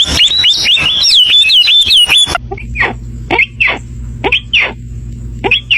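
Bird calls: a rapid run of high whistled notes, then, after an abrupt cut about two seconds in, a series of short sharp chirps that drop in pitch, spaced out over a steady low hum.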